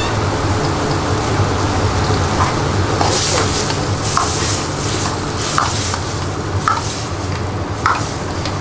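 Metal ladle stirring and scraping thick chana masala in a steel kadai on a gas burner. Sharp clinks of ladle on pan come about once a second, over a steady low hum.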